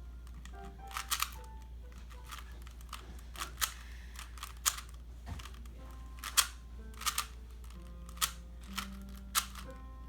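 A Rubik's cube being twisted, its plastic layers making sharp clicks at irregular intervals, about one or two a second, over faint held notes of music.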